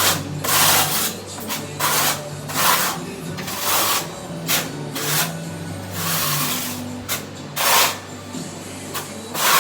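Irregular scraping and rubbing strokes, roughly one or two a second, of grout being worked over shower wall tile by hand, over a steady low hum.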